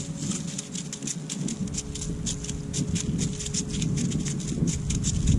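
Quick, irregular light ticking and rustling, several times a second, of clothing and hand moving close to the microphone as a short ice-fishing rod is jigged over the hole. A faint steady low hum runs underneath.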